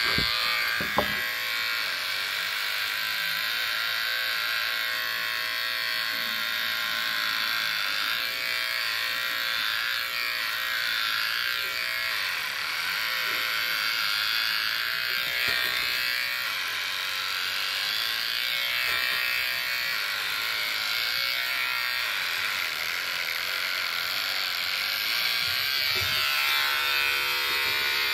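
Corded electric hair clippers buzzing continuously while cutting hair, the pitch wavering slightly as they move through it. There is a sharp click about a second in.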